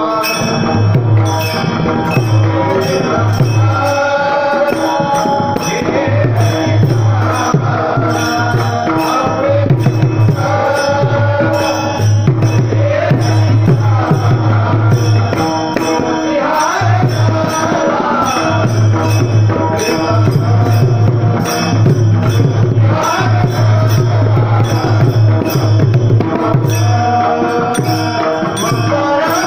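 Marathi devotional panchapadi sung in a melodic, chant-like line, with percussion keeping a steady beat and sharp jingling strokes on top.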